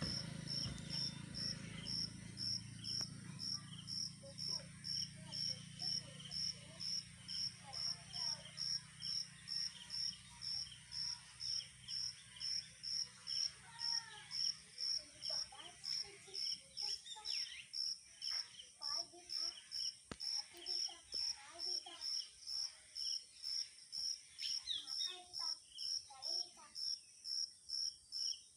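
Evening insects: one chirps in an even rhythm of about two chirps a second over a constant high buzz from others. Scattered short bird-like calls join in the second half.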